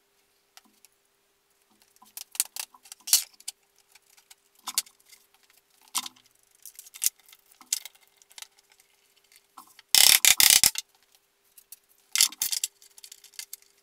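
A metal bar clamp and wooden strips being handled and set on a workbench: scattered clicks and knocks, then two short bursts of rapid clicking near the end as the clamp is tightened across a glued-up tabletop. A faint steady hum lies underneath.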